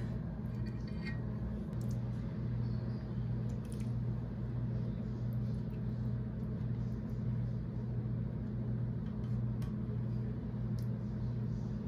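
Steady low machine hum, like a motor or fan running, with a few faint light clicks scattered through it.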